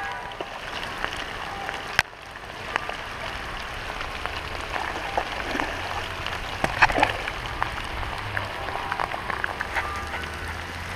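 Steady rain falling on wet pavement and a lake surface, with scattered small clicks and knocks and one sharp click about two seconds in.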